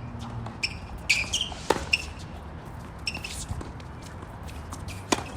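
Tennis ball struck by rackets and bouncing on a hard court during a doubles rally, with short high squeaks of tennis shoes. Several sharp hits come in the first two seconds, then a lull, then another hit near the end.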